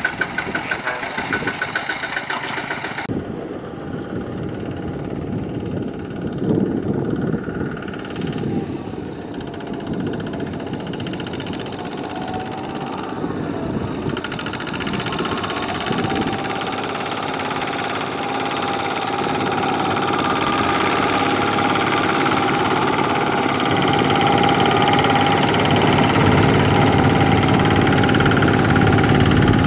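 Kubota ZT140 single-cylinder diesel engine of a two-wheel walking tractor running with a knocking beat, working under load as it hauls a trailer of rice sacks through deep mud. It grows louder over the last ten seconds.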